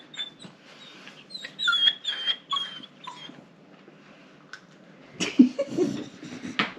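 Dog whining in a string of short, high-pitched whimpers, the way a dog begs for a treat, followed about five seconds in by a few louder scuffling, rustling noises.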